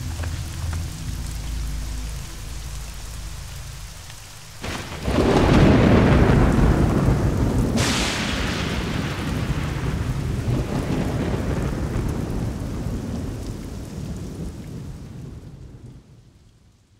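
Thunderstorm: steady rain under a low rumble, then a loud thunderclap about five seconds in and a second sharp crack near eight seconds. The thunder rolls on and slowly fades away near the end.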